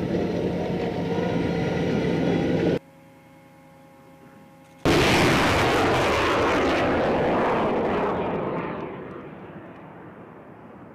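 M270 MLRS launcher's diesel engine running steadily, then cutting off abruptly a little under three seconds in, leaving a faint hum. About five seconds in, a rocket launches with a sudden loud roar that holds for about three seconds and then fades away as the rocket flies off.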